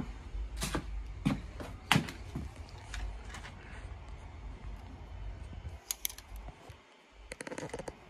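Handling noise as a phone camera and its light are moved and repositioned: a run of sharp clicks and knocks, with a quick clatter near the end, over a steady low hum.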